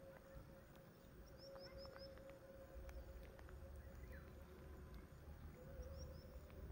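Quiet outdoor ambience: a small bird gives short high chirps, a quick run of five a little over a second in and two more near the end, over a faint low rumble and a faint steady hum.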